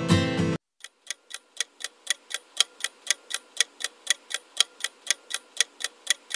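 A ticking-clock sound effect marks a quiz countdown timer, with sharp, even ticks about four a second. It starts just after a snatch of music cuts off suddenly, under a second in.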